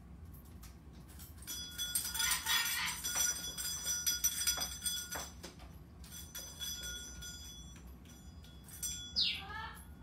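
Small metal bells on a hanging bird toy jingle and ring as a cockatoo clambers and flaps on it, with a few sharp metal clinks. Near the end comes a short animal call sliding down in pitch, then a wavering cry.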